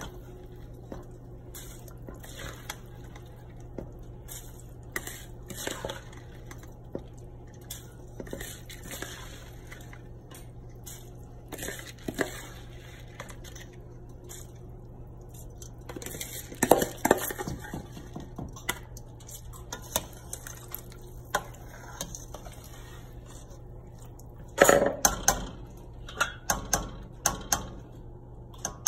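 Metal spoon clinking and scraping against a stainless steel pot as soaked rice is spooned into boiling broth and stirred. The knocks come scattered, in thicker clusters a little past halfway and again near the end, over a steady low hum.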